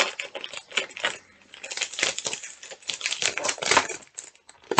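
Clear plastic bag crinkling and crackling as it is handled and pulled open by hand, in irregular bursts.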